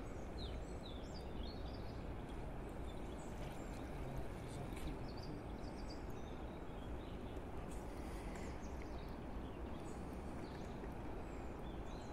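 Steady low outdoor hiss, with faint short high bird chirps scattered through it.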